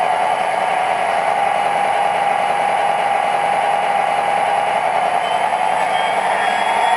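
Scale model SD40-2 diesel locomotive with an MTH Proto-Sound 2.0 system, playing its recorded EMD diesel idle through the model's speaker while the locomotive stands still. A steady drone that does not change.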